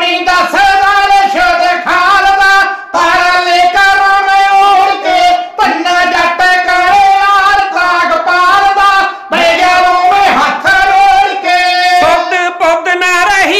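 Kavishri singing: male voices singing Punjabi verse together in long, drawn-out high phrases into a microphone, unaccompanied.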